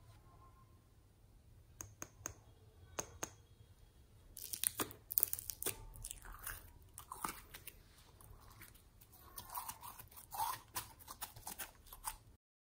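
Red glitter slime being squeezed out of a soft pot and worked in the hands: sticky, wet crackling and popping. A few separate clicks come first, then from about four seconds in a dense, irregular crackle that cuts off just before the end.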